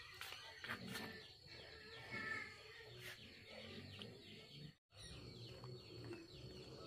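Small birds chirping faintly in short, falling calls, with a few soft knocks in the first few seconds.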